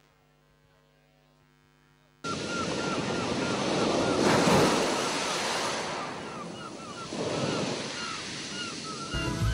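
Near silence, then about two seconds in a played-back soundscape of breaking surf cuts in suddenly, swelling and falling, with many short high chirps repeating over it. Just before the end a low beat of music comes in.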